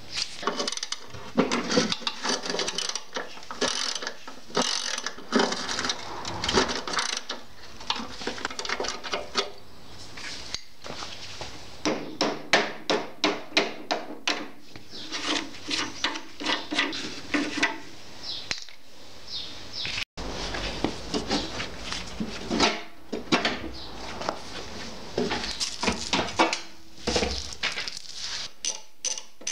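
Hand ratchet and socket clicking in runs as bolts are worked loose, with scattered metal knocks and scrapes on the steel parts.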